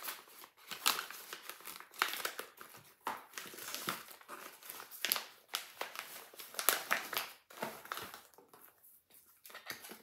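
Irregular crinkling of plastic and paper packaging and rustling of a cardboard box, as a diamond painting kit's contents are packed back into its long cardboard box and the end flap is handled. The rustles ease off briefly near the end.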